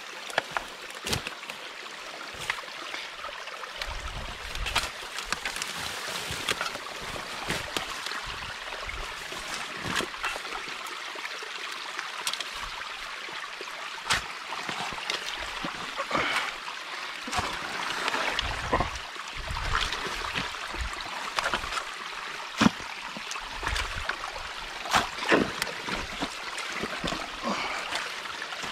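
Water trickling and running through a beaver dam, with many sharp irregular snaps and knocks as sticks are pulled and broken out of the dam by hand.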